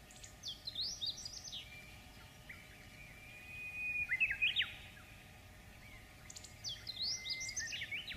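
A songbird singing three phrases of quick whistled notes that sweep up and down, each joined to a held high whistle.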